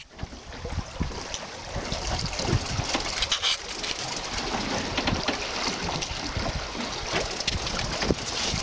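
Wind buffeting the microphone, with the sea washing against a boat and scattered sharp clicks.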